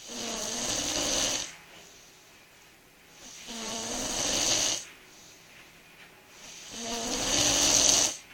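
A sleeping person snoring: three rasping snores, each about a second and a half long and growing louder, coming about every three and a half seconds. The last is the loudest.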